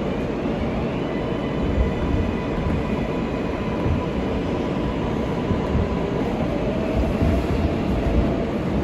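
R143 subway train in motion: a steady rumble of wheels on rail with irregular low thumps. Over it runs a faint whine that rises in pitch during the first second and then holds steady.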